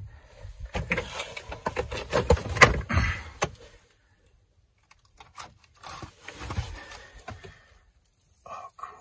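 Close rustling and scraping full of sharp clicks, in two spells with a short quiet gap between them.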